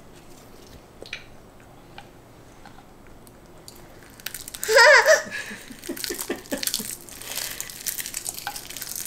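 Dry roasted seaweed snack sheets crinkling and crunching as they are handled and eaten, starting about five seconds in. Just before that, a toddler gives one brief high squeal, the loudest sound.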